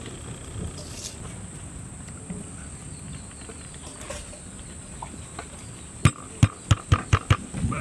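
A low rumbling background, then near the end a quick run of about eight sharp knocks, typical of a large steel lid and a heavy cooking pot being knocked and set down.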